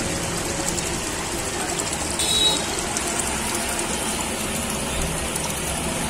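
Steady bubbling and splashing of water from aquarium aeration and filters. A brief high-pitched squeak comes about two seconds in.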